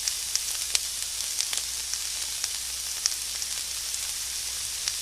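Chopped onion frying in hot oil in a kadai: a steady high sizzle with scattered small pops.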